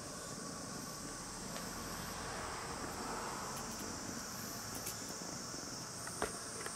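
Steady background hiss with a faint high-pitched hum, and one short click about six seconds in.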